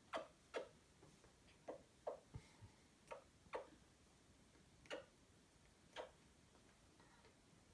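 Faint, sharp clicks at irregular intervals, about ten over six seconds, in near silence.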